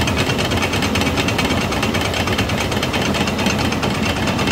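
1950 Farmall Cub tractor's four-cylinder engine running steadily, driving a Meadows grist mill that is grinding corn into meal. The two together make a loud, even noise with a fast pulse.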